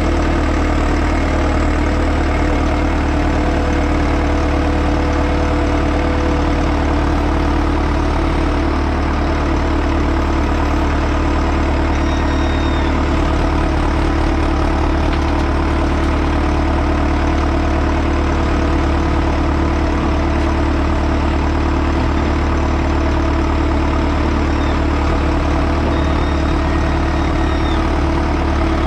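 Heavy diesel engine running steadily at a constant speed, with a few faint brief high squeals near the middle and toward the end.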